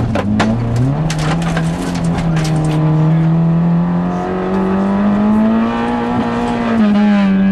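Rally car engine heard from inside the cabin, running hard on a gravel stage: the revs jump up about a second in, climb slowly, then fall off near the end. Sharp clattering ticks of gravel and stones striking the car fill the first couple of seconds.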